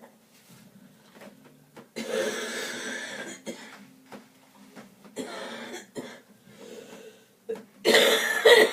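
A man coughing in three bouts: a long one about two seconds in, a shorter one about five seconds in, and the loudest, a double cough, near the end.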